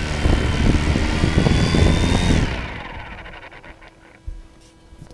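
A small FPV quadcopter's electric motors and propellers whirring on the ground. About two and a half seconds in they spin down, the whine falling away and fading out. A short knock near the end as the drone is handled.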